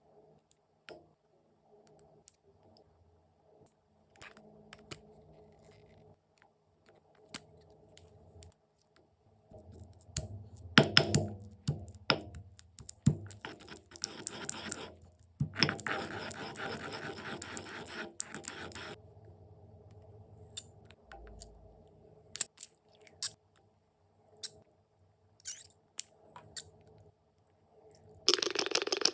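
Slime being handled: scattered wet clicks and snaps, with stretches of dense crackling about a third and about halfway in.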